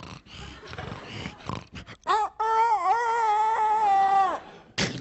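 A man making sound effects with his voice: a few soft breathy noises, then, about two seconds in, a long, loud, wavering held note lasting about two seconds, with a short sharp vocal sound near the end.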